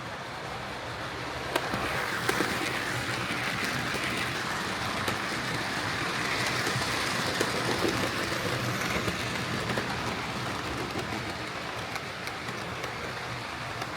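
Hornby Railroad Class 9F OO-gauge model steam locomotive and tender running along model track, a steady whirring motor and rolling wheels with small clicks over the rail joints. It grows louder over the first few seconds and fades gradually toward the end, as the model runs nearer and then away.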